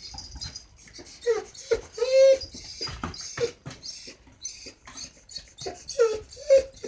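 A kitten mewing over and over in short high cries. The longest and loudest comes about two seconds in, and a few more come quickly near the end.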